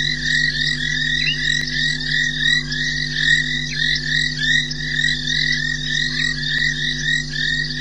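A dense chorus of frogs calling at a waterhole at night: many short, high, repeated calls overlapping, several a second, without pause. A steady low hum runs underneath.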